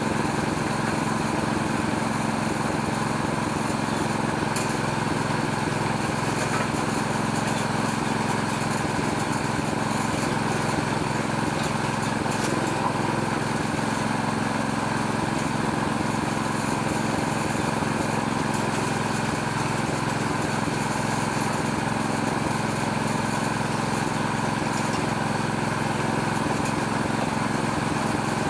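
Small Robin-type petrol engine running steadily at a constant speed, driving a homemade oil-palm loose-fruit threshing machine.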